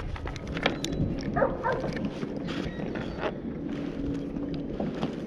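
Scattered light knocks and clicks of gear and a paddle against a plastic kayak hull. A faint steady hum comes in about three and a half seconds in.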